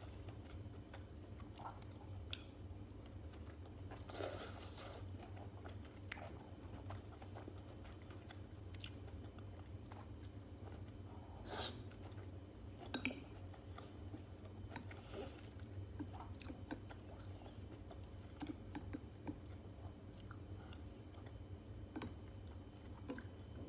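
Close-miked eating sounds: chewing and biting with scattered crunches, over a steady low hum.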